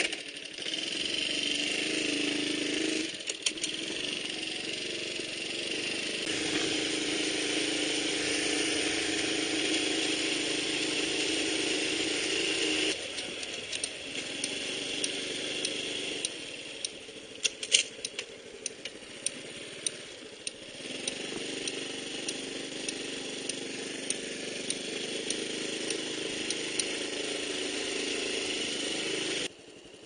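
Honda Super Cub 110's small air-cooled single-cylinder four-stroke engine running on the move, its pitch stepping with gear changes and speed. The engine eases off for several seconds in the middle, when a few sharp rattling clicks come through.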